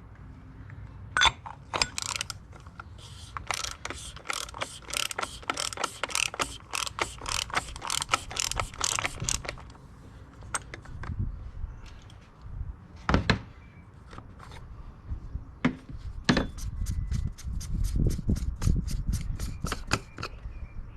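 A ratchet clicking in two quick, even runs of about four clicks a second, with a few single knocks between them, as the cover of a canister-type oil filter housing is unscrewed.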